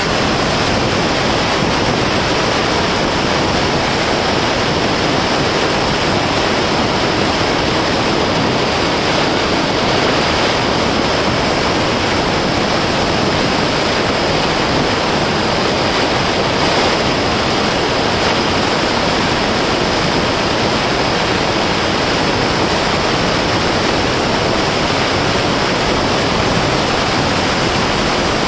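Steady loud rush of wind and propeller noise picked up by the microphone of the onboard camera on an RC fixed-wing plane in flight, with a thin high steady whine under it.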